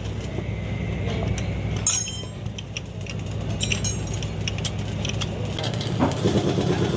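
An engine idling steadily, with the clinks and taps of metal tools and parts being handled over it.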